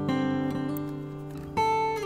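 Background music: an acoustic guitar playing held chords, with a new chord struck about one and a half seconds in.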